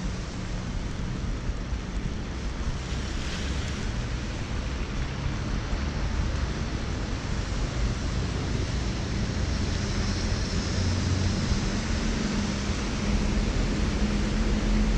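Steady rain drumming on an umbrella overhead, mixed with the hiss of tyres on a wet city street. A low vehicle engine hum comes in and grows louder near the end.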